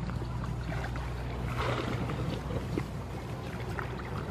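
Water splashing briefly as a person wading in a shallow river reaches down into the water, about one and a half seconds in, over a steady low hum.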